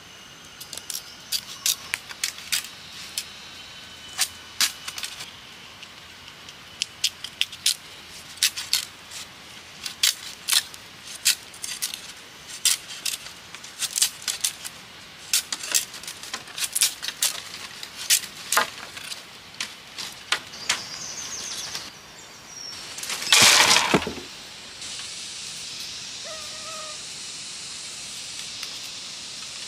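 Knife blade scraping and splitting green bamboo strips: many short, sharp scraping strokes, then one louder, longer rasp about three-quarters of the way through. Near the end a steady background hiss with a few brief bird calls.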